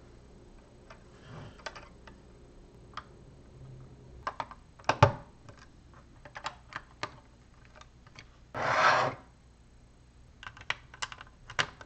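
Plastic LEGO bricks being pressed and snapped together by hand: scattered small clicks, the sharpest about five seconds in, and a brief rubbing scrape of plastic a little before the end.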